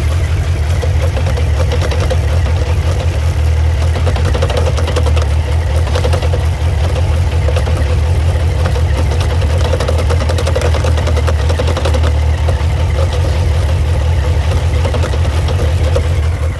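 Suzuki GSX1250FA's inline-four engine idling steadily, with a fast, even pulse.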